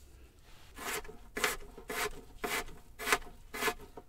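Chef's knife chopping apple pieces into small chunks on a plastic cutting board: about six cuts in a steady rhythm roughly half a second apart, starting about a second in.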